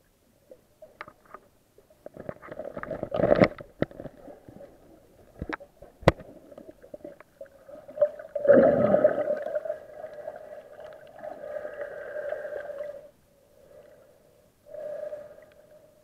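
Muffled underwater sound picked up by a camera in a waterproof housing during snorkeling: a wavering mid-pitched drone that comes and goes in stretches, strongest from about halfway through, with scattered sharp clicks and knocks.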